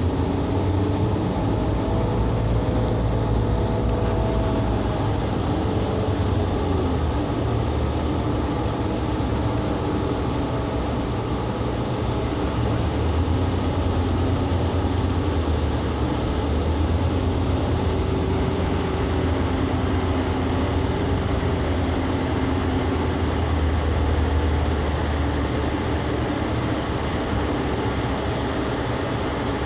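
Steady rumble of a moving public transit vehicle heard from inside, with faint tones drifting up and down in pitch.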